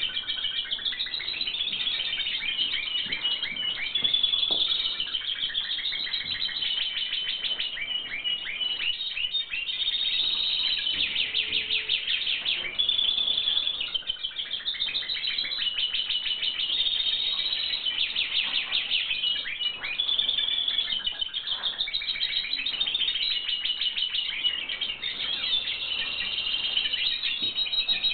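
European goldfinches singing: a continuous stream of rapid twittering and fast trills.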